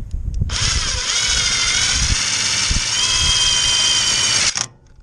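Cordless drill with a nut-driver socket running steadily for about four seconds, spinning a self-tapping metal screw in. It gives a high whine that starts about half a second in and stops suddenly just before the end.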